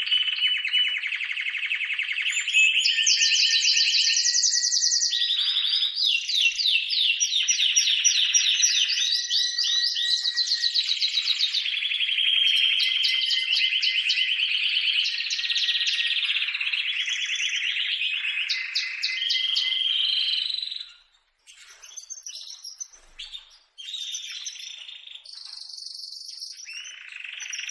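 Loud, rapid trilled bird calls following one another in quick succession, then dropping away suddenly about two-thirds of the way through to fainter, scattered chirps.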